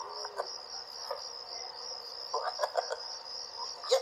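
Crickets chirping in a steady, rapidly pulsing trill, with a few short faint sounds in the middle and a sharp click near the end.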